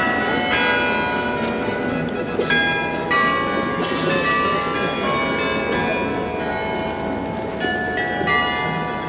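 Carillon bells of the Royal Palace playing a melody, with new bell notes struck about every half second and the earlier notes still ringing under them. Steady street noise runs beneath.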